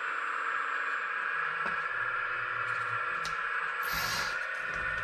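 Hydraulic pump of a 1/15-scale RC hydraulic excavator running with a steady whine as the boom and arm are worked, with a brief hiss about four seconds in.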